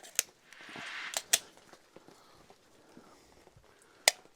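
A few sharp clicks and knocks with a short scraping rustle between two of them, the sound of handling and setup rather than a gunshot.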